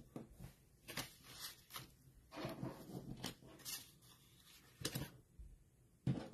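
Paper and cardstock pieces being handled and shuffled: soft rustles and a scattering of light taps.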